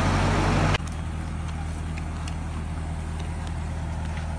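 Caterpillar excavator's diesel engine running at a steady idle. About a second in it drops abruptly to a quieter, duller sound, as if heard from farther off.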